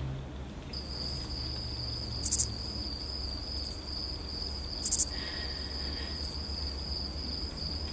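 Cricket chirping: a steady high trill that starts about a second in, with a short, louder chirp twice, over a low hum.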